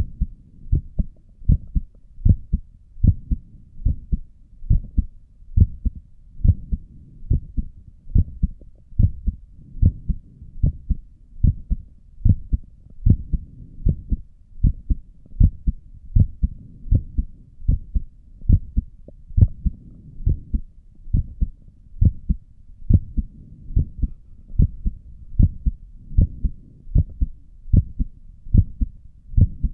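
Human heartbeat heard through a stethoscope: steady paired lub-dub beats, about one a second, low and muffled.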